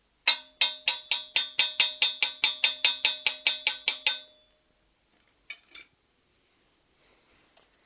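A metal object struck rapidly and repeatedly, about four to five ringing clangs a second for some four seconds, each with the same ringing pitches. Two weaker clangs follow about a second later.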